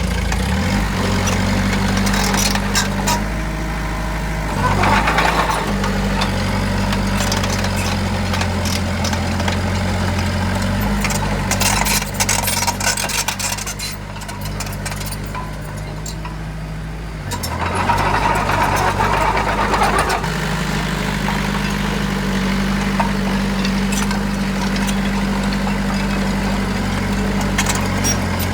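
Heavy diesel engine of a dump truck or bulldozer running steadily, its pitch shifting a few times. Two short louder noisy bursts come over it.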